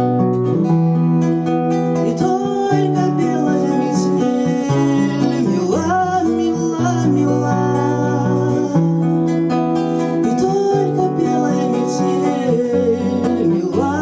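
A song played on acoustic guitar over long held low notes, with a melody that slides up and down in pitch.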